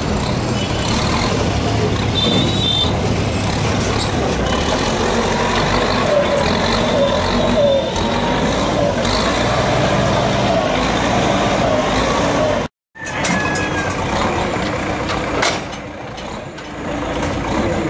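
JCB backhoe loader's diesel engine running as it clears debris, over busy street noise with voices. The sound cuts out for a moment about two-thirds of the way through.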